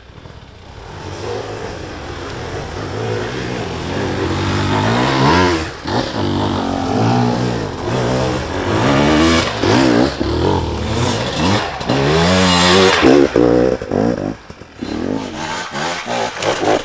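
Hard enduro dirt bike engine revving hard on a steep forest climb, the revs rising and falling over and over as the rider works the throttle. The engine grows louder through the first part and drops away briefly near the end before picking up again.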